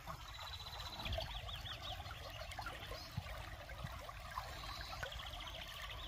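Water trickling in a small stream, with small birds chirping. A high, wavering trill comes in twice, about a second in and again near the end.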